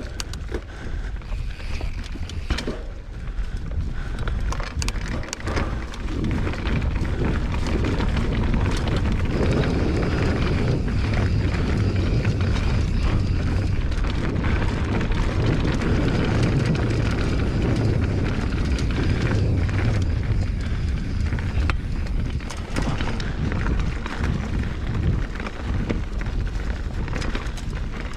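Mountain bike riding over a dirt trail: tyre rumble and wind on the microphone, with frequent small clicks and rattles from the bike. It gets louder through the middle as the wind noise builds.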